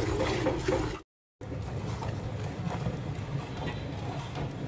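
A cow being milked by hand: milk squirts hit a steel pot in a quick, even rhythm. The sound cuts out briefly about a second in. After that it comes back as a softer, steadier sound of streams into foamy milk over a low rumble.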